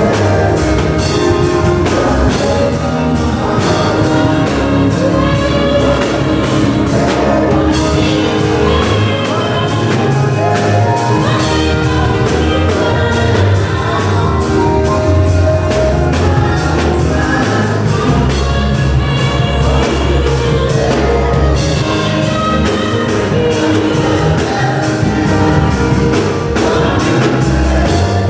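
Worship music: singing over an accompanying band with a steady beat.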